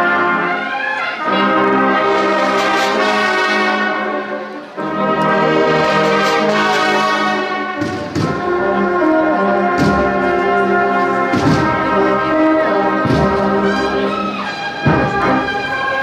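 Cornet-and-drum band (banda de cornetas y tambores) playing a processional march: full held chords from the cornets, with a brief break about five seconds in. Drum strokes come in about halfway and beat roughly every one and a half seconds.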